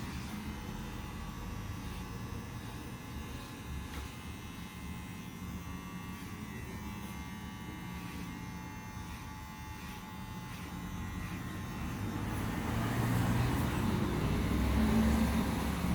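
Electric hair clippers buzzing steadily during a haircut, getting louder about three quarters of the way through.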